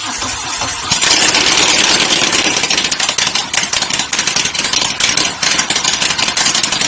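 Moto Guzzi V7 Stone's air-cooled V-twin through loud aftermarket twin exhaust pipes, starting up and, about a second in, settling into a loud steady idle, echoing in a garage.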